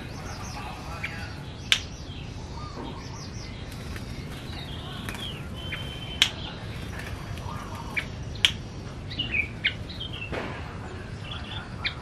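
Male yellow-vented bulbul (trucukan) calling in short chirps and brief trills while fluttering its wings at a hand, with a few sharp clicks in between.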